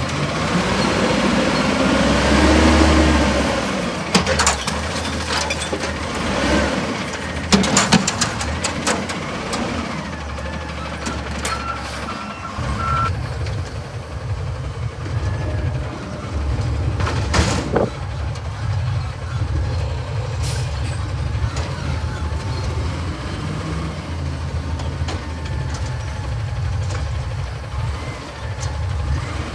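Peterbilt 320 front-loader garbage truck, its compressed-natural-gas engine revving as the Amrep arms raise a steel dumpster with a rising hydraulic whine. Then comes a run of clanks and bangs from the metal dumpster over the hopper, a short beeping about twelve seconds in, another bang a few seconds later, and the engine running on underneath.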